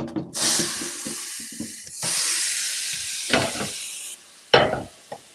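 Water from the kitchen tap running hard into a frying pan in the sink: a loud hiss in two stretches that stops about four seconds in, with the pan knocking against the sink. Then two metal clunks as the pan is set down on the gas stove's grate.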